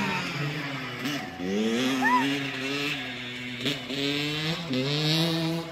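Small dirt bike engine running under a rider, revving up about a second and a half in, easing off briefly, then rising again twice more and holding steady.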